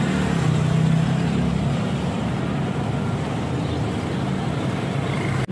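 Steady road traffic noise, with a vehicle engine running close by as a low hum.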